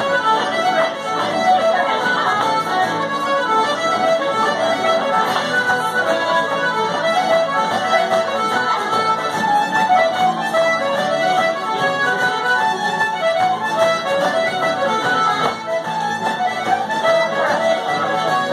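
Irish traditional dance music led by accordion, played continuously at a steady pace for set dancing.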